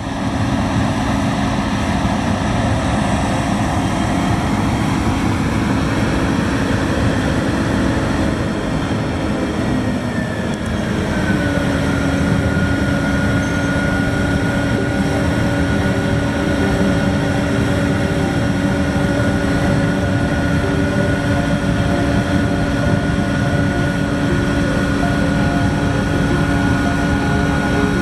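Harvest machinery engines running steadily, a combine harvester and a grain truck working the wheat field. A whining tone slides down in pitch about ten seconds in and then holds steady.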